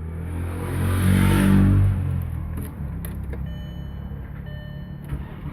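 Skoda Superb 2.8-litre V6 engine starting up: it catches and swells to a brief rev about a second and a half in, then settles to a steadier idle.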